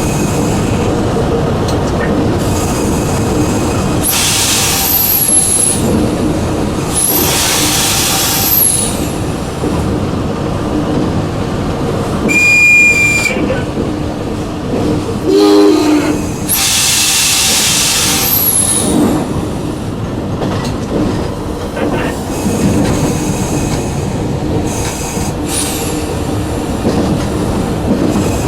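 A diesel-hauled passenger train running, heard from the locomotive cab: a steady running noise with three stretches of high hiss and squeal lasting about two seconds each. A short high beep comes just before halfway, followed by a brief horn blast.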